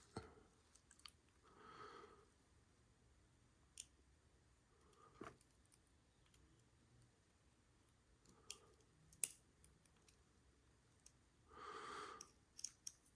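Near silence, broken by scattered faint small clicks of metal lock pins and picking tools as a pin-tumbler lock cylinder is taken apart. There is a small cluster of clicks near the end, and two soft breaths, one about two seconds in and one near the end.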